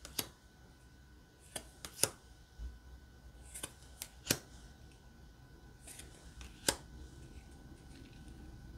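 Playing cards of a mini tarot deck being flipped through one at a time in the hand, each card slid off the pack with a quiet snap. The snaps come irregularly, sometimes two or three in quick succession.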